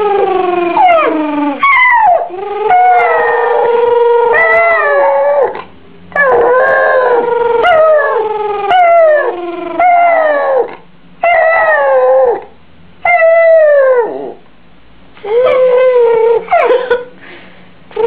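Yorkshire terrier howling: a string of long howls, each sliding down in pitch, with short breaks between them.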